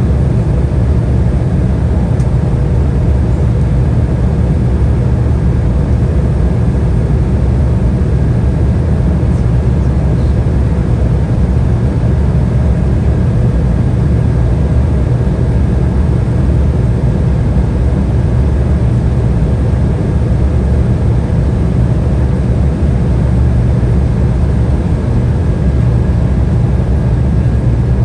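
Steady cabin noise inside an Embraer E175 jet in flight: a low rumble of airflow and its GE CF34 turbofan engines, with a faint steady whine above it.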